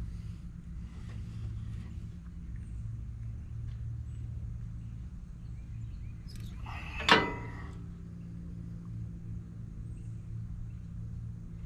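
Steady low hum with one sharp metallic clank about seven seconds in, ringing briefly.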